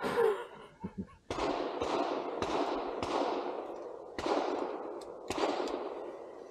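A string of about six gunshots starting about a second in, spaced irregularly over some four seconds. Each shot trails a long rolling echo that fades away.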